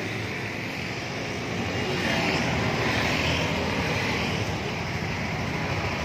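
A steady droning noise, like a running engine, that grows louder about two seconds in, with a hissy swell riding on top.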